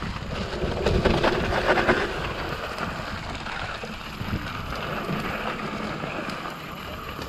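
Santa Cruz Nomad mountain bike riding fast down a dirt singletrack: wind buffeting the camera microphone, tyres running over dirt and roots, and the bike knocking and rattling over bumps, loudest about one to two seconds in.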